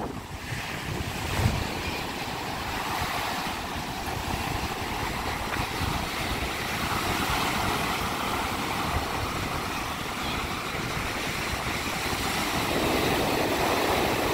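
Rough Baltic Sea surf breaking and washing up the sand in a steady rush, with wind buffeting the microphone.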